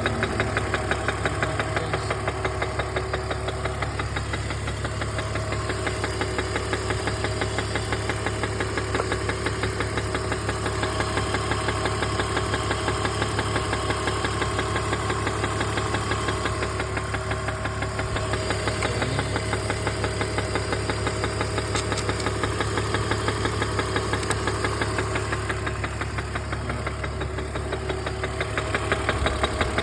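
BMW E46 330's inline-six engine running at a steady speed with a rapid, regular tapping knock that the owner is recording as a fault.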